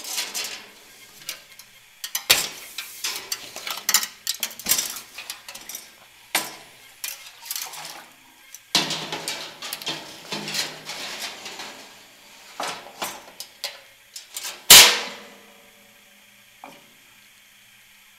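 Removable metal fuel tank and sheet-metal cabinet of a DynaGlo RMC55-R7 kerosene heater being handled as the tank is set into the heater: a run of metal clanks, knocks and rattles with some scraping, and one loudest clank a few seconds before the end.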